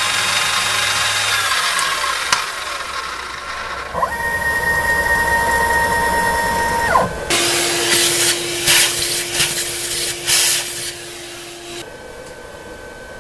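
CNC mini mill cutting brass with an end mill: loud cutting noise and motor whine, then a steady spindle whine that winds down about seven seconds in. After that comes a steady motor hum with four or five bursts of rushing noise as the brass chips are cleared off the work.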